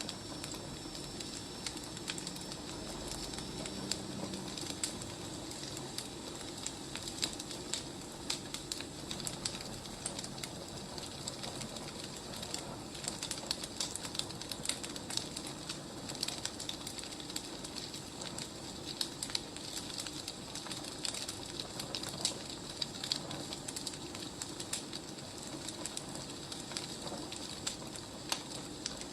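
Firewood burning: a steady low hiss with frequent small sharp crackles and pops.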